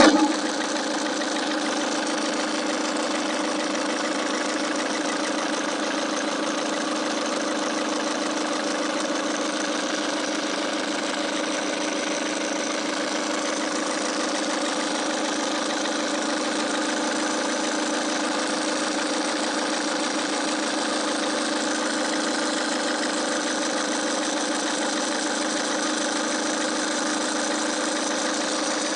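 Ford Focus Mk3 TDCi diesel engine idling steadily, with an abnormal noise from the accessory drive belt in the engine bay.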